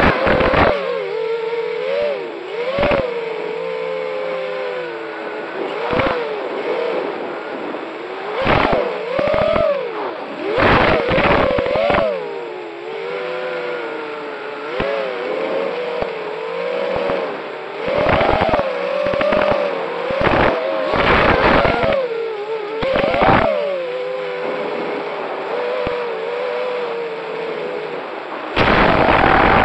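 Racing quadcopter drones' electric motors whining, their pitch rising and falling constantly with the throttle. Several short, loud bursts of noise cut in along the way.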